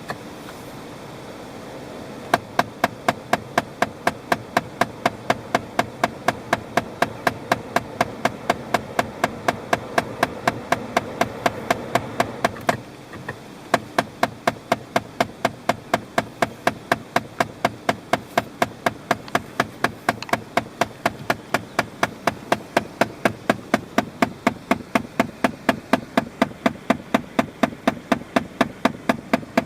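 Sharp, regular mechanical ticking, about three ticks a second, over a steady low running hum. The ticking and the hum drop out briefly about 13 seconds in, then the ticking carries on.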